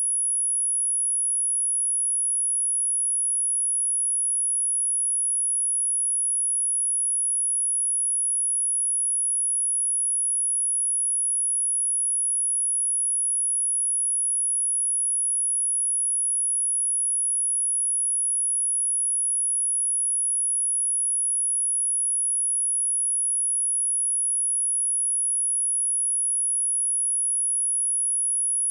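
A steady, high-pitched 10292 Hz sine-wave test tone: one pure, unbroken tone at constant loudness, used for testing speakers and for clearing water and dust out of them.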